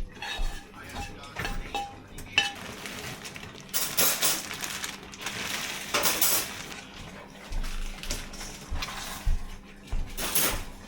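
Kitchen clatter: pots, pans, dishes and cutlery knocking and clinking, with a few brief rushes of noise.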